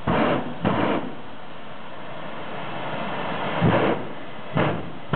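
Jet turbine engine running with a steady rushing roar, broken by four short loud whooshes as it blows bursts of flame from its exhaust: two in the first second, then two more about a second apart near the end.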